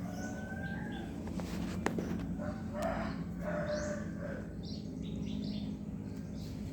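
Short pitched animal calls, several in a row through the first few seconds, some sliding in pitch, over a steady low hum.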